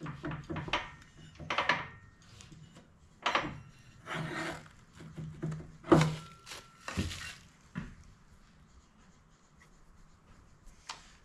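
Irregular clinks, knocks and scraping of a metal clutch pulley being handled and worked on and off a small engine's crankshaft, with a few thuds on a wooden workbench. It goes quiet for the last few seconds.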